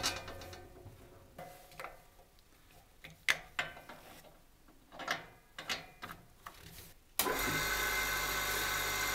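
Metal clinks and knocks as a large steel circular saw blade is set on a sharpening jig's pin and its nut is screwed down. About seven seconds in, the sharpener's old three-phase electric motor with a diamond grinding wheel switches on suddenly and runs steadily.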